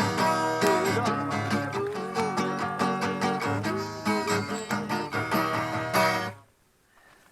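Acoustic guitar music, strummed, which stops abruptly about six seconds in.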